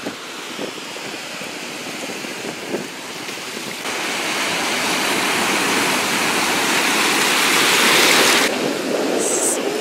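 Sea surf washing in over the shallows at the water's edge: a steady rushing hiss that swells as a wave runs up around the feet, then drops off suddenly near the end.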